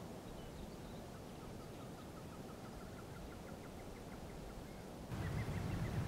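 A bird calling a quick series of short, evenly spaced notes, about five a second, climbing slowly in pitch, over a steady outdoor background hiss. About five seconds in, the background grows louder and lower.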